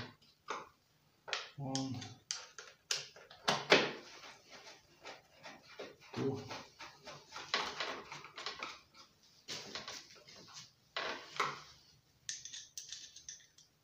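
Bolts being tightened to secure the engine cover of a Subaru lawnmower engine: scattered sharp clicks and knocks, with a quick run of clicks in the middle.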